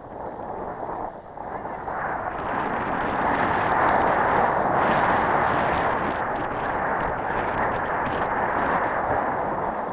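Skis sliding and scraping over packed, tracked snow during a downhill run, mixed with wind rushing over the microphone. The noise builds over the first few seconds, then holds steady with small scratchy ticks.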